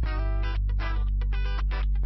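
Background music: a guitar-led track with a steady bass and chords struck in a quick, even rhythm.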